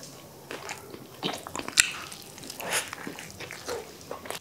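Close-miked eating: two people biting into and chewing pizza and a burger, with irregular crunches and mouth clicks, the sharpest about two seconds in.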